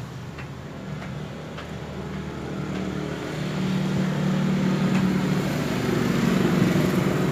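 Motor-vehicle engine running on the street, a low steady hum that grows louder over the second half, with a few faint clicks.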